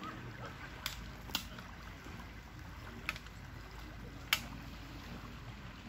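Lake water against a steady low rumble of wind, broken by four short sharp slaps or clicks.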